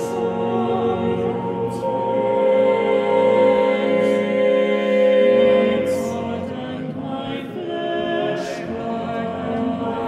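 Eight-part a cappella choir singing long, held chords that shift slowly, with soft hissing consonants now and then. The sound swells in the middle and eases off toward the end.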